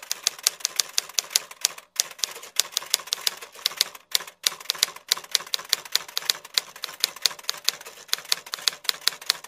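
Typewriter key clicks as a sound effect, a rapid, uneven run of sharp clicks several a second, with two short pauses about two and four seconds in.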